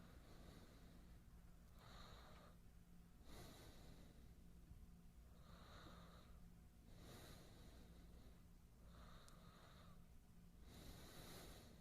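A man's faint, slow breathing close to the microphone, soft inhales and exhales about every one and a half seconds, over a faint steady hum.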